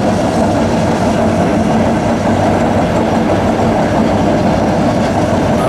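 Heavy diesel construction machinery running steadily: a Caterpillar excavator and a drilling machine working a waterline trench, a continuous engine drone over a rough grinding rumble.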